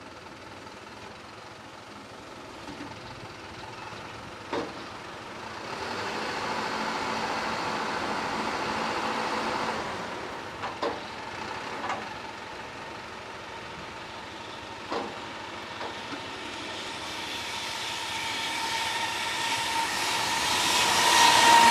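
Electric-locomotive-hauled freight train approaching. Its rail noise grows steadily louder over the last few seconds, with a whine that drops slightly in pitch as it arrives. Earlier come a swell of passing vehicle noise and a few sharp knocks.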